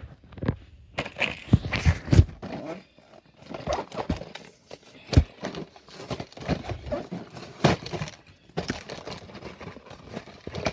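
Toy packaging being opened by hand: plastic blister and cardboard crackling, snapping and crinkling in irregular bursts, with a few louder cracks.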